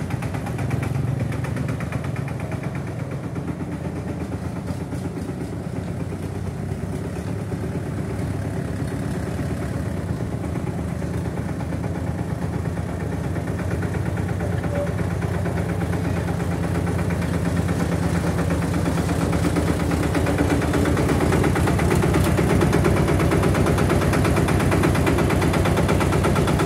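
Engine of a small self-propelled concrete mixer vehicle running steadily with a fast, even chugging beat. It grows louder in the second half.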